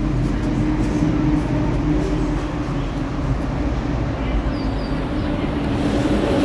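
Steady mechanical rumble with a constant low hum, unbroken throughout.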